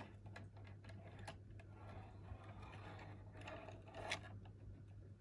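Faint, scattered clicks from a model train and its wagon on the track, over a steady low hum.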